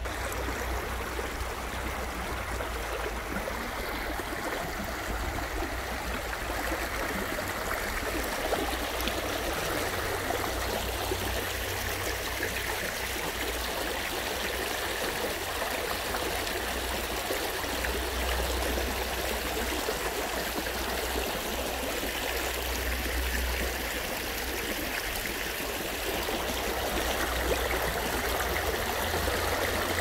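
A shallow stream babbling steadily over stones and pebbles, getting a little louder near the end where the water breaks into a small riffle.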